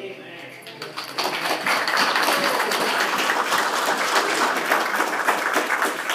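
Congregation applauding at the end of a song: many hands clapping, swelling about a second in and holding steady.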